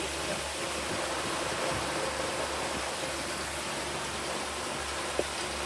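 Motorboat under way: a steady rush of water and wind with a low engine hum underneath.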